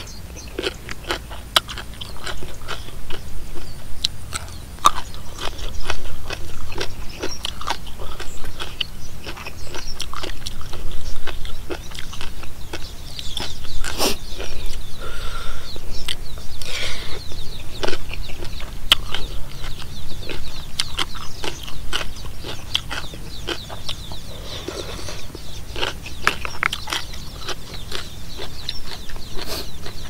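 A person chewing and biting crunchy food close to the microphone, with many short wet crunches: mouthfuls of spicy seafood papaya salad with crunchy jellyfish.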